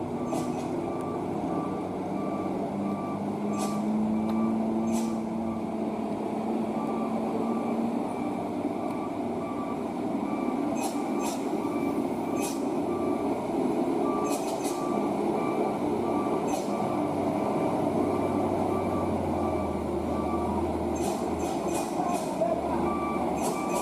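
A heavy truck's engine running steadily while its back-up alarm beeps over and over at an even pace, with a few sharp clicks. The low engine rumble grows deeper and louder near the end.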